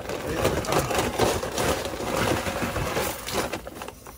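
Crinkling and gritty rustling of a plastic bag of kitty litter being handled, with the litter shaken out to soak up spilled transfer case fluid. It stops about three and a half seconds in.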